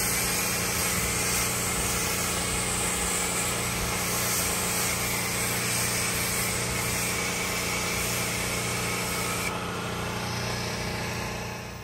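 Pressure washer running steadily: the hum of its small engine under the hiss of the spray from the wand. About three-quarters of the way through, the spray hiss stops while the engine keeps running.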